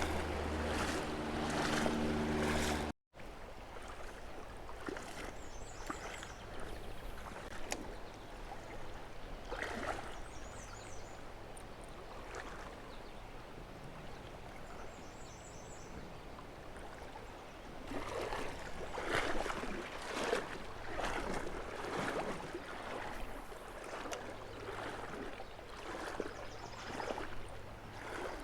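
Shallow river water running and splashing, with uneven louder surges. The sound drops out completely for a moment about three seconds in.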